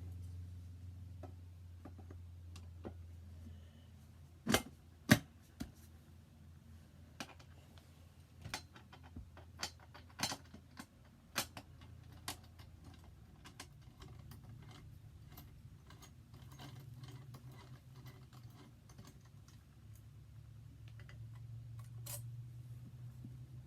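Handling noise: scattered light clicks and taps, with two sharp clacks about four and a half and five seconds in and a quick run of clicks a few seconds later, over a low steady hum.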